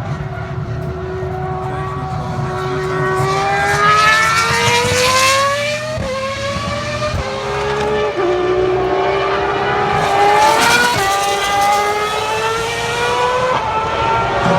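Ferrari racing car engine accelerating hard, its pitch climbing and dropping sharply at each upshift, four or five gear changes in a row.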